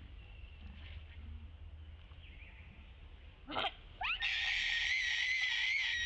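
Baby macaque crying: a few short rising squeaks about three and a half seconds in, then one long, loud, high-pitched cry held near one pitch for about two seconds.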